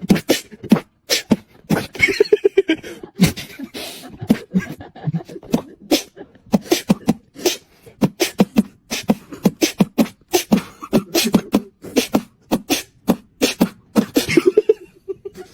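Beatboxing: a person's mouth making a fast, irregular string of sharp percussive clicks and snares with short hummed bass notes in between.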